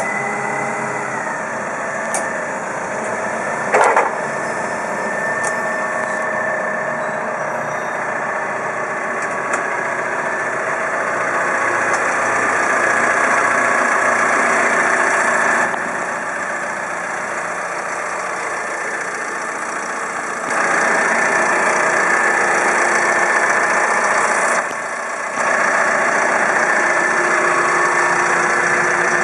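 Clark C50s forklift engine running, twice getting louder for several seconds. A short sharp knock about four seconds in.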